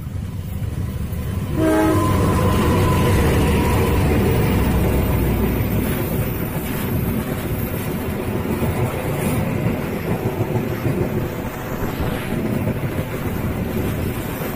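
Diesel locomotive hauling a passenger train past at close range. The sound jumps loud about two seconds in as the locomotive reaches the microphone, with a brief pitched note. Then comes the steady rumble and clatter of the coaches' wheels on the rails as they roll by.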